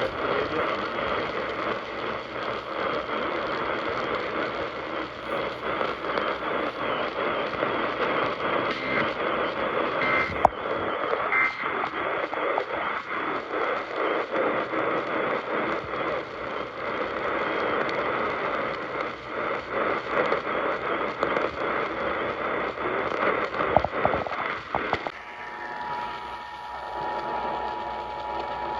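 Hissing, crackling static from a weakly received radio broadcast. About 25 seconds in, it gives way abruptly to a steady two-note tone just under 1 kHz, the Emergency Alert System attention signal.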